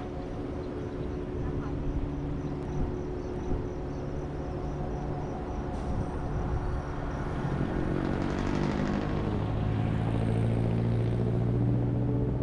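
Motor vehicle engine noise that swells and grows louder in the second half as a car and a motorbike come close, over a steady low hum.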